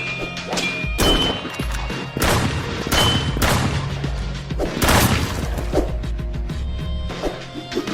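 Fight sound effects over background music: a string of heavy hits and blasts, several loud strikes a second or so apart, some followed by a brief high metallic ring.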